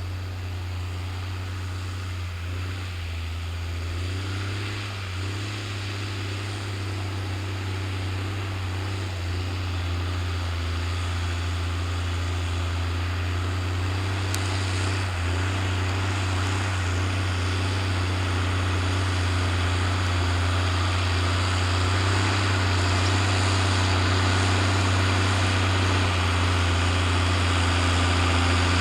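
New Holland TM120 tractor's diesel engine running steadily under load while pulling a reversible plough, growing gradually louder.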